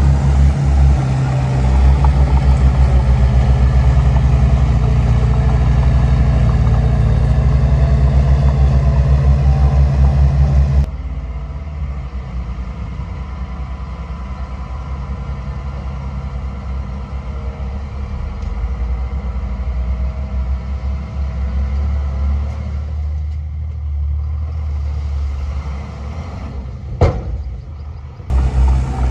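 Heavy diesel engine of earthmoving machinery running close by, with a fast, even firing beat. About eleven seconds in the sound switches abruptly to a quieter, duller engine, with one sharp knock near the end before the loud engine returns.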